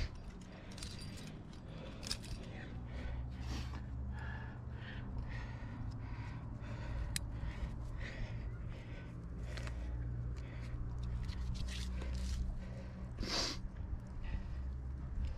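Climbing gear on a trad rack clinking and jangling, with hands and shoes scuffing on rock, as a climber works up a crack. The scrapes and clicks come irregularly over a steady low rumble, with one louder scuff near the end.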